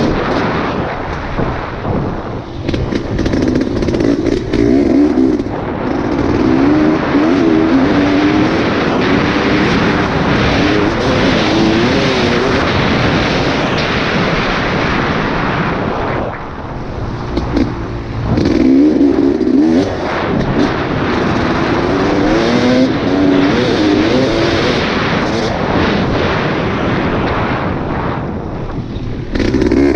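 Off-road vehicle engine running and revving up and down, buried in heavy wind noise on the microphone. The engine eases off briefly about halfway through and again near the end.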